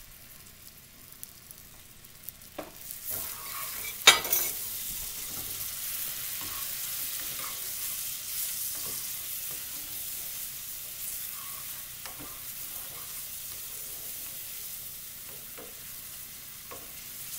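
Butter, brown sugar and banana sauce sizzling in a skillet. About four seconds in, heavy cream poured into the hot pan sets off a sudden loud sizzle, which settles into a steady sizzle as a wooden spoon stirs and knocks against the pan.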